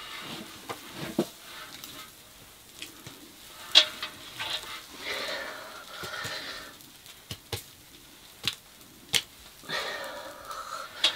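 Flatbread baking in a clay pit oven: scattered sharp clicks and knocks as dough is set against the hot oven wall, with a soft sizzling hiss that comes and goes.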